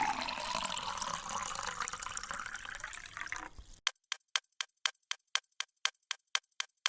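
Water running and filling a container for about four seconds. It stops abruptly and gives way to a fast, even run of sharp clicks, about five a second.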